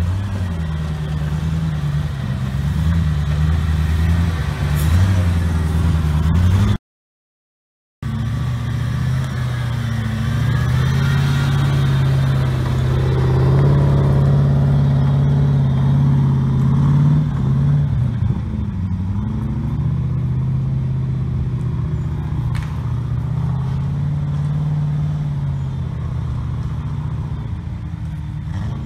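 Engine of a modified Land Rover trials vehicle driving off-road, revs rising and falling as the driver works the throttle. It cuts out completely for about a second, seven seconds in, then comes back at higher, wavering revs as it climbs the slope.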